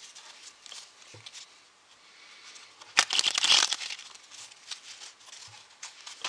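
A deck of Memento Mori playing cards being handled: a loud, dense rustle of cards riffling for under a second, starting with a sharp snap about three seconds in, among scattered light clicks of the cards being cut and squared.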